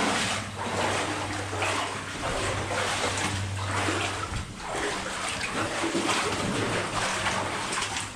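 Legs in waders wading through water in a flooded mine tunnel, the water sloshing and splashing with each stride, about one stride a second.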